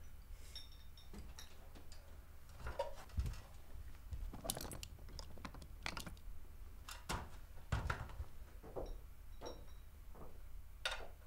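Scattered light clicks and taps of small objects being handled at a table, at irregular spacing, with a few faint high ringing tones.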